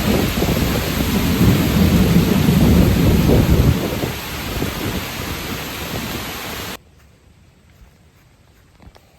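Heavy rain pouring down, with a deep rumble of thunder swelling in the first few seconds. The sound cuts off suddenly about two-thirds of the way through, leaving only faint background.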